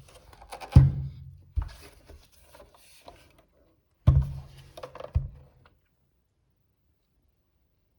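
Hard plastic clunks and knocks from handling an ITT Schaub-Lorenz SL56 cassette recorder: four sharp knocks with rubbing in between during the first six seconds, then quiet.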